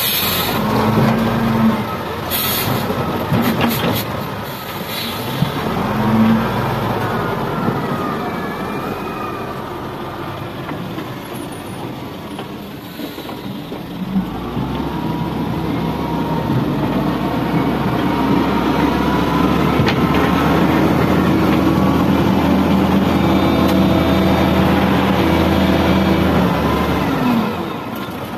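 XGMA wheel loader's diesel engine running and revving as it works; in the first few seconds clods of soil clatter down into a steel dump-truck bed. About halfway through the engine gets louder and holds steady under load as the bucket drives into a soil pile.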